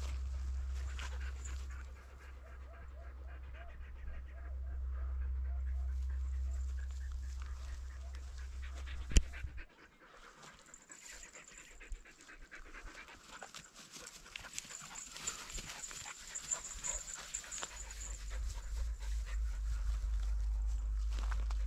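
Saluki-type sighthounds panting close by. A low rumble sits on the microphone through the first half and returns near the end, and there is one sharp click about nine seconds in.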